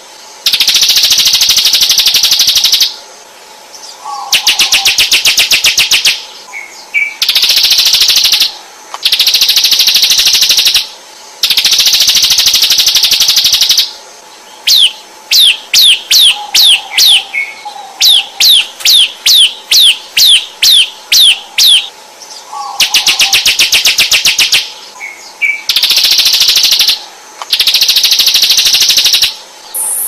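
Bar-winged prinia (ciblek) song from a bird-lure recording. Loud, rapid buzzing trills of one to two seconds each are separated by short pauses. In the middle comes a run of sharp, downward-sliding notes, about three a second.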